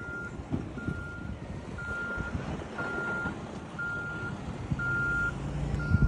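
Vehicle reversing alarm beeping about once a second, each beep a single steady tone about half a second long, over low rumbling; a low steady hum joins about five seconds in.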